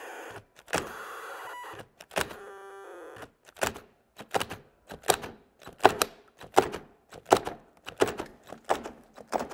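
A DeWalt and a Milwaukee cordless drill locked chuck to chuck, driving against each other under stall load. There are three short strained runs of motor noise in the first three seconds, then a rapid string of short bursts about every three-quarters of a second as the drills' overload cutoff keeps tripping and they are restarted.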